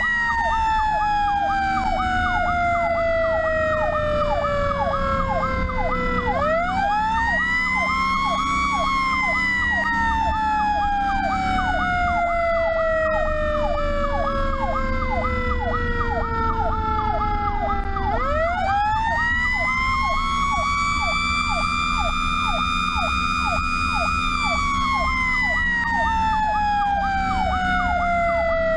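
Fire truck sirens on a run: an electronic siren yelping about three times a second, layered with a second siren wail. The wail slides slowly down in pitch, winds back up twice and slides down again. A low engine and road rumble runs underneath.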